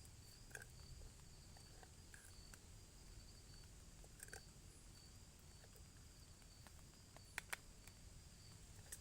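Faint forest ambience: an insect trilling at a high pitch in short repeated pulses over a low steady rumble, with a few light taps and two sharp clicks about seven and a half seconds in.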